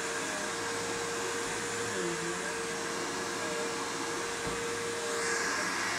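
Upright vacuum cleaner running steadily as it is pushed over carpet, its motor noise carrying a steady whine.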